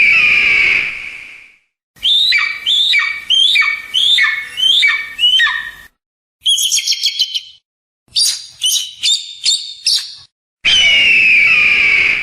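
Eagle calls in short spliced recordings broken by silences: a long, harsh, high scream, then a series of about eight chirps that each fall in pitch, a quick run of high piping notes, another chirping series, and a second long scream near the end.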